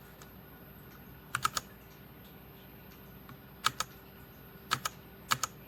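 RK Royal Kludge RK61 60% mechanical keyboard: four separate key presses spaced about a second apart, each a quick double click of the key going down and coming back up.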